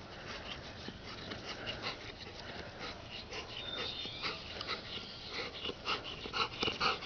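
Dog panting after running, a run of quick breaths that grows louder near the end.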